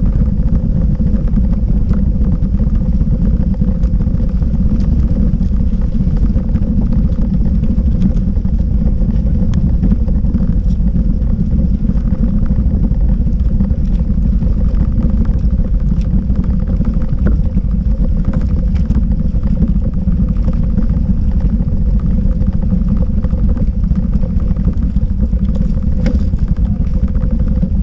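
Bicycle riding over cobblestones: a loud, constant rumble and rattle as the tyres and frame jolt on the stones.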